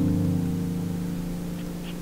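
Background music: a sustained chord that sets in at the start and slowly fades.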